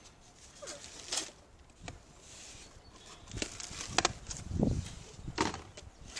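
Cardboard shipping box being handled: flaps and panels scraping, flexing and knocking in short irregular bursts, busiest in the second half, with one heavier, deeper thud.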